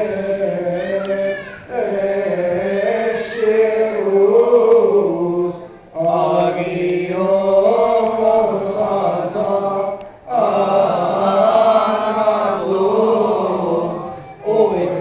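Coptic Orthodox liturgical chanting: a slow, wavering melody sung in phrases of about four seconds, with a short break for breath between phrases.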